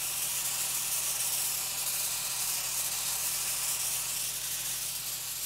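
Pressure-washer wand hissing steadily as its water jet sprays onto a bronze statue, with a faint steady low hum underneath.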